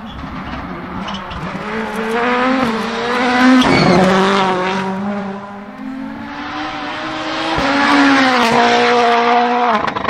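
Toyota Yaris WRC rally car's turbocharged four-cylinder engine accelerating hard, pitch climbing to a peak about four seconds in. It climbs again to a second peak near eight seconds, with sudden drops in pitch at gear changes near the end.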